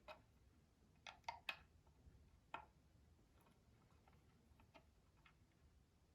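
Scattered light clicks and taps against near silence, as of small parts being handled during repair work: three sharp clicks in quick succession about a second in, another about a second later, then a few fainter ticks.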